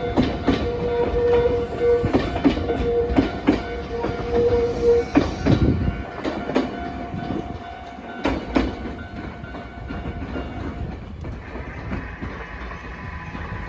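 Nankai Railway electric train passing over a level crossing, its wheels clacking rhythmically over the rail joints with a steady tone underneath. The clacks thin out and the sound drops about six seconds in, with a last few clacks near eight seconds as the train clears the crossing.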